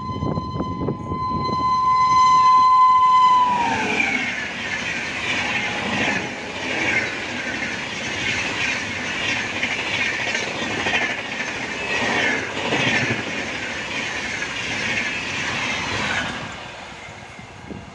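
An Indian Railways express train's horn sounds as one long steady note that drops in pitch as the locomotive passes, about three and a half seconds in. The coaches then clatter past with clickety-clack wheel noise until the train clears the crossing near the end.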